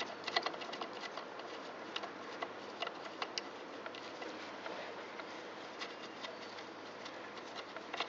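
Hand thread-cleaning tool being turned in a corroded bolt hole: irregular small clicks and scraping as it cuts and is rocked back now and then to clear the rust from the threads.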